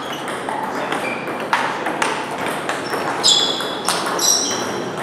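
Table tennis ball pinging off bats and the table in a forehand topspin rally: one bat has Yinhe Moon Speed rubber on a Sword 309 Def blade. A string of sharp, ringing pings over hall noise, the loudest two about three and four seconds in.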